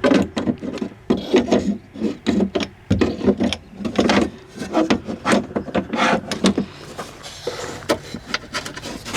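Window regulator and motor assembly knocking and scraping against the inside of a Tesla Model S door shell as it is worked in through the door opening: a run of irregular clunks, rattles and rubbing.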